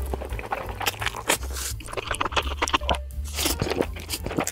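Close-up slurping and chewing of instant ramen noodles, short wet mouth noises and crunches, over background music with a steady bass line.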